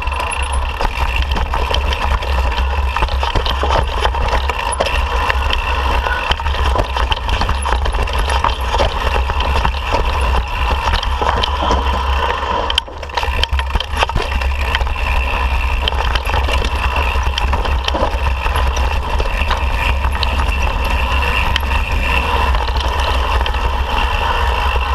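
Mountain bike riding down a dirt and rock trail: heavy wind rumble on the camera's microphone, with the tyres crunching and the bike rattling and clicking over rocks, and a steady whir beneath, with a brief dip about 13 seconds in.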